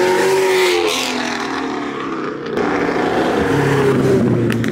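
Classic Jaguar with a burble (pops-and-crackles) exhaust tune driving off: the engine note swells and falls in the first second, then climbs again, and the first exhaust pops crackle right at the end.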